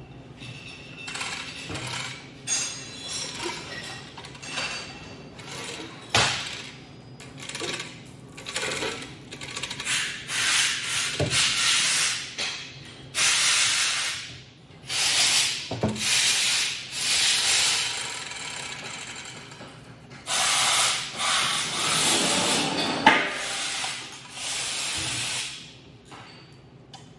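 Hand chain hoist being worked to lower a steel weldment onto a machine table: the chain rattles and clinks in bursts of a few seconds, with several sharp metal clanks as the steel part meets the table and is shifted into place.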